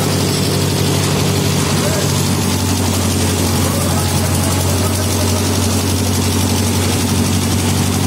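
Engine of the concrete-pouring machinery running steadily at an even pace, with a deep hum that holds through the whole stretch.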